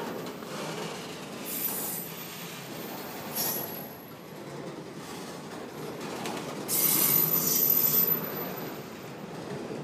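Freight train of autorack cars rolling past close by, its steel wheels squealing on the rails in high-pitched bursts over a steady rumble. The loudest squeal comes about seven seconds in and lasts about a second.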